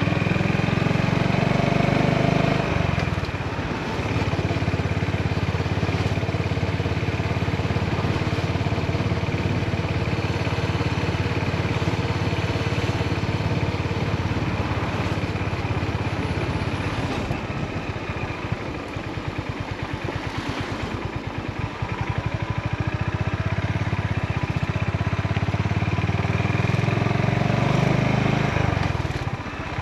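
Honda GB350's air-cooled single-cylinder engine and exhaust running under way. It pulls strongly near the start and again near the end, and eases off to a lighter, pulsing beat in the middle.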